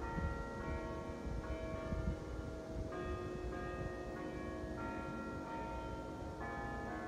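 Bells ringing, new notes struck every half second to a second and a half and each left to ring on, over a low, uneven rumble.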